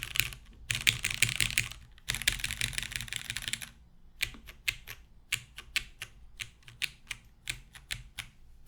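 Mechanical keyboard typing on a Noxary 280: lubed, filmed Cherry MX Brown tactile switches in a top-mounted 5 mm polycarbonate plate with GMK keycaps and no foam. Fast continuous typing in three runs with brief pauses, then slower single keystrokes about two a second from about four seconds in.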